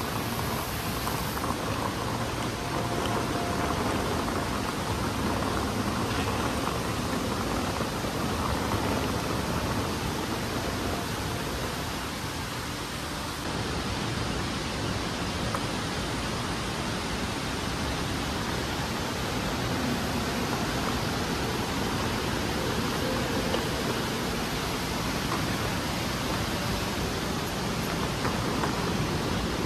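Steady, even rushing noise with no breaks or distinct events, slightly quieter for a moment in the middle.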